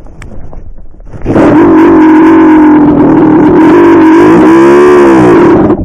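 440cc dirt bike engine running loud under throttle, starting abruptly about a second in, its pitch wavering and then rising and falling near the end before it cuts off.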